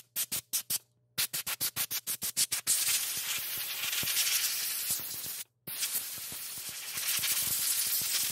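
Compressed air hissing from an air-compressor blow gun as it blasts dust off a bathroom exhaust fan's blower wheel and housing. It starts as a rapid string of short bursts, about eight a second. Then it becomes long steady blasts, with one brief break about halfway through.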